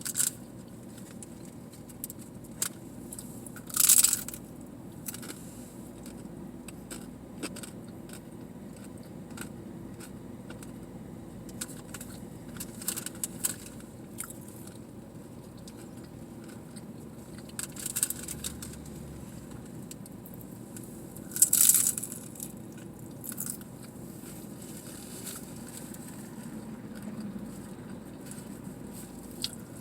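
Close-up eating of tacos: chewing and biting with small wet mouth clicks, and two louder crunchy bites, about 4 seconds in and again about 21 seconds in, over a steady low hum.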